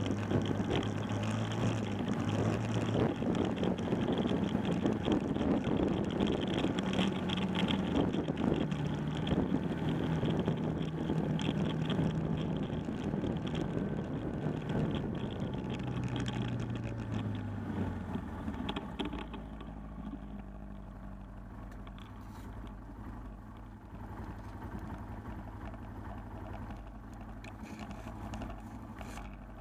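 Four-wheeler ATV engine running under way. About two-thirds of the way through it slows, gets quieter and settles to a steady idle.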